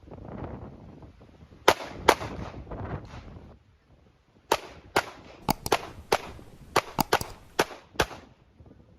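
Handgun shots during a USPSA stage: two shots close together about two seconds in, then after a pause a quick string of about ten shots, several in fast pairs.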